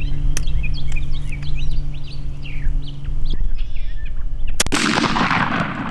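A single 12-gauge shotgun blast about three-quarters of the way in, firing a 3-inch BB load at a target 30 yards off, with a long rolling echo after the crack. Small birds chirp before the shot.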